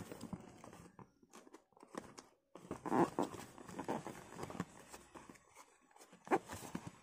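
Cardboard microphone box being handled and pried open by hand: irregular scraping, rustling and small knocks of the cardboard, with louder bursts about three seconds in and near the end.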